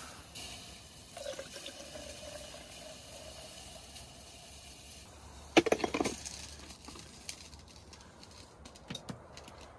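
Freshly made coffee being poured into a cup, with a steady filling sound for a few seconds. About five and a half seconds in there is a short clatter, and a few light clicks come near the end.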